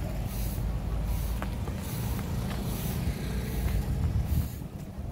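Street noise of passing motor traffic: a low, uneven rumble with a few faint ticks, easing off a little near the end.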